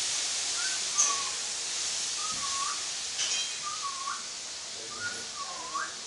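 Rose-ringed parakeet whistling: a short note that dips and then rises, repeated about once a second, with a few sharp high chirps, over a steady hiss.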